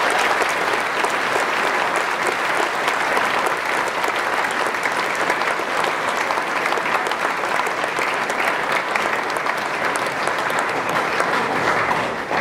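Large audience clapping steadily, the applause fading out near the end.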